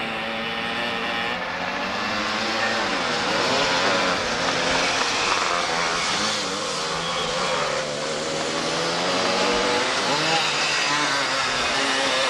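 Two-stroke go-kart engines running at high revs, their pitch rising and falling over and over as the karts accelerate and slow.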